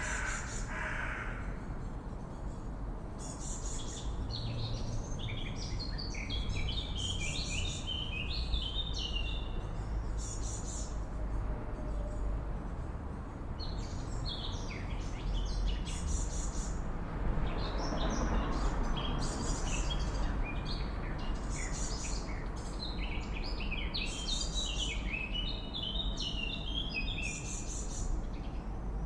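Swallows twittering: rapid high chirps and short falling trills, over a steady low background rumble that swells briefly about two-thirds of the way through.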